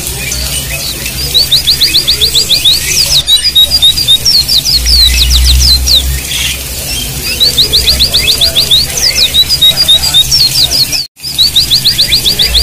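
White-eye (pleci, Zosterops) song: fast trills of sharp, falling chirps in repeated bursts, with the same phrases coming round again every few seconds. The sound cuts out completely for a moment about eleven seconds in.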